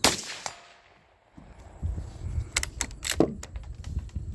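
A single gunshot at the start that rings off and dies away over about half a second. From about a second and a half in come a low rumble and several sharp clicks and knocks.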